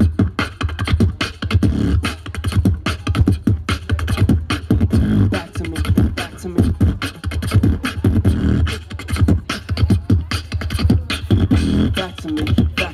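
Live beatboxing: vocal percussion of rapid kicks, snares and clicks in a fast, dense drum-and-bass groove, amplified through a PA.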